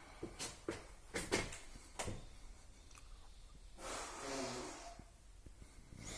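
Plastering trowel on fat lime putty: several sharp taps in the first two seconds, then about a second of the steel trowel scraping around four seconds in.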